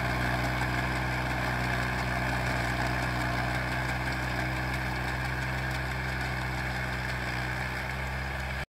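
Small compact tractor's engine running steadily under load as it pulls a rotary tiller through the soil; the sound cuts off suddenly near the end.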